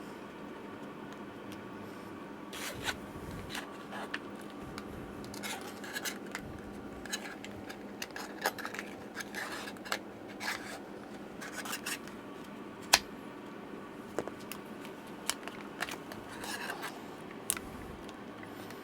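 Hands working on an opened laptop with small tools and parts: scattered light clicks, taps and short scraping and rubbing sounds, with one sharper click about thirteen seconds in, over a faint steady hum.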